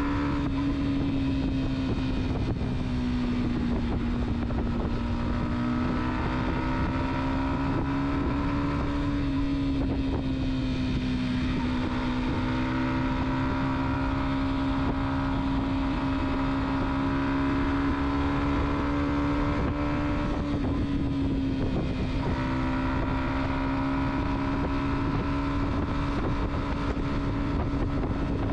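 A car driving at a steady speed: a constant engine hum that drifts slightly up and down in pitch, over continuous road and wind noise.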